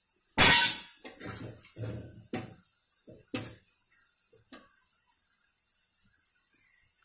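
A person coughing hard once, then clearing the throat and coughing several more times in short bursts over the next four seconds. Oil sizzles faintly underneath as food deep-fries.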